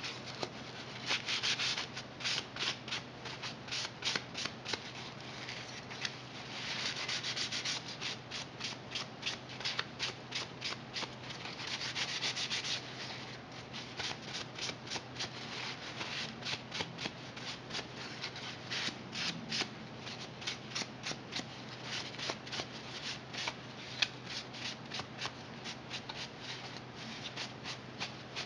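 Sandpaper rubbed by hand over a painted 3D-printed part, sanding back its iron-paint base coat, in short quick back-and-forth strokes of about three a second, with faster flurries now and then.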